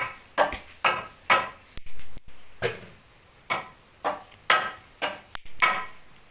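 A series of about a dozen sharp knocks, irregularly spaced at roughly two a second, each with a brief ringing tail like wood being struck.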